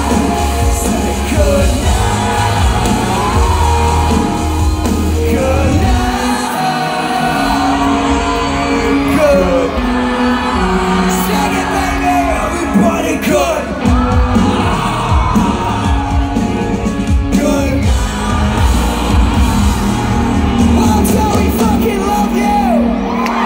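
Loud live rock music from a festival stage's PA, with the crowd singing and yelling along. The heavy bass drops out for about a second around six seconds in, then comes back.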